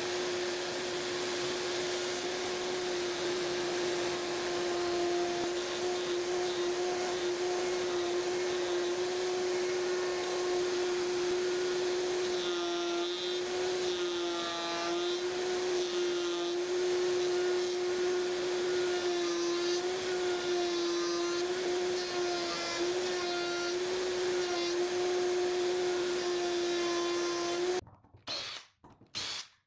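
Router table's router running with a steady high whine as it mills a walnut piece, its pitch dipping and wavering a little in places under the cut. It shuts off suddenly near the end, followed by a few short knocks.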